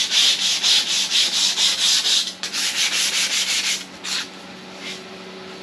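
A sanding pad is rubbed back and forth by hand on a rusty cast-iron table saw top to scour off the surface rust. The strokes are quick and even, about four a second. They pause briefly after two seconds, resume, and end with a couple of single strokes near the end.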